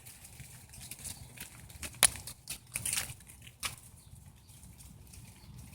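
Frosted leaves falling and landing with scattered crisp ticks and clicks, the sharpest about two seconds in and a small flurry of them around three seconds, over a faint low background rumble.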